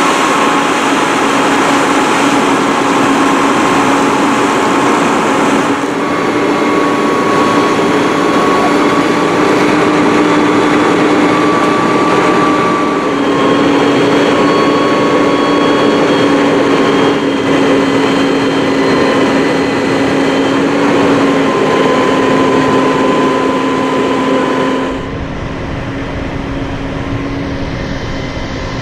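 Construction crane's engine running steadily with a whining drone while it hoists a coaster track segment into the air. Near the end the sound turns duller, with a low rumble.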